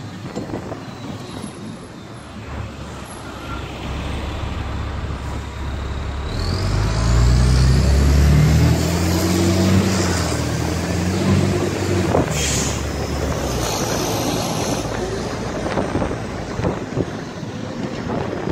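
A motor vehicle driving along a city street, heard from on board, with running road noise. About six seconds in, the engine note climbs as the vehicle speeds up, with a rising whine above it. A sharp knock comes about twelve seconds in.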